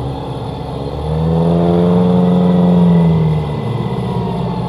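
Off-road 4x4's engine revving hard under load for about two seconds, its pitch rising and then easing back, before dropping to a lower, steadier running sound.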